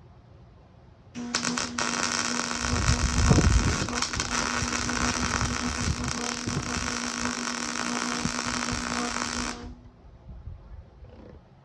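Electric arc welding on steel plate: a steady crackling sizzle with a low hum, starting abruptly about a second in and cutting off sharply after about eight seconds. A low rumble sits under it from about two to four seconds in.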